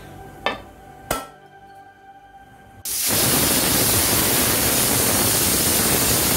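Two light metal clinks as the pressure cooker's whistle weight goes onto the vent. Then a loud, steady hiss of steam blowing past the weight as the aluminium pressure cooker whistles, the sign that it has come up to pressure. The hiss cuts off suddenly.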